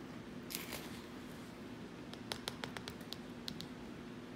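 Quiet handling of plastic kitchen items on a countertop: a brief rustle, then about eight light, sharp clicks in quick succession, over a faint steady hum.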